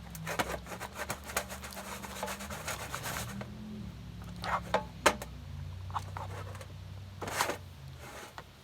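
Spoon stirring slime in a bowl: a quick run of scraping clicks for the first three seconds or so, then scattered taps and scrapes.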